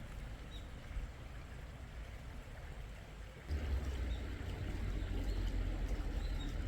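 Mountain valley stream flowing, with a low rumble underneath; the sound gets louder about three and a half seconds in.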